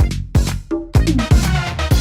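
Electronic dance music with a heavy kick-drum beat. The beat briefly thins out and drops away in the first second, then comes back in full.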